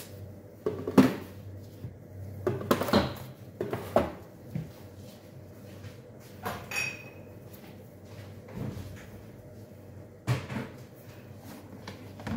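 Kitchen clatter of things being handled: a series of knocks and bumps, busiest in the first few seconds and again near the end, with one short ringing clink a little past halfway.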